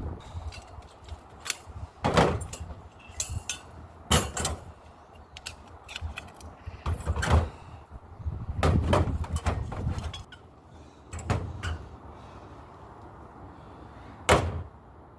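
Irregular metallic clanks, knocks and rattles of parts and hand tools being handled while a scrap microwave is stripped down for its metals. There are roughly ten separate knocks, the loudest near the end.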